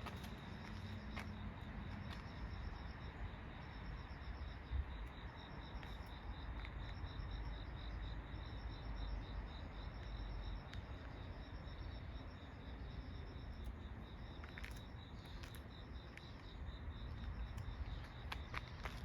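Crickets chirping: a steady high trill, with short pulsed phrases repeating about once a second just above it, over a low rumble.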